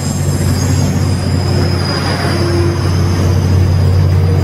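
Caltrain bilevel passenger cars rolling past close by, over a steady low drone from the MP36PH-3C diesel locomotive pushing at the rear, growing louder as it nears. A thin high whine runs over it.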